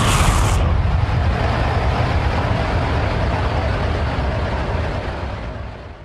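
Designed sci-fi spaceship sound effect: a deep, noisy engine-like rumble whose high hiss drops away about half a second in, then fades out near the end.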